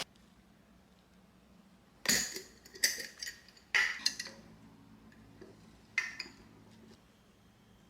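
Dishes and utensils clinking and knocking in a kitchen, in a few separate sharp strokes: a cluster between about two and four seconds in, and one more near six seconds.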